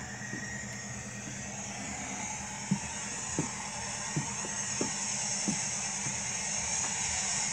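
Norfolk Southern diesel locomotives passing close by, heard from inside a closed car: a steady low drone that grows louder, with wheels knocking over rail joints roughly every two-thirds of a second from about a third of the way in.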